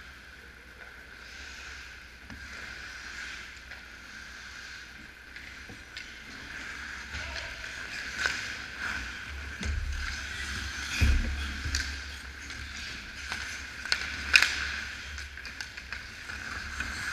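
Ice hockey play at close range: skates scraping the ice with sticks and puck clacking, louder from about halfway as players close in on the net. Dull low thumps just past the middle and a sharp crack, the loudest sound, about three-quarters of the way through.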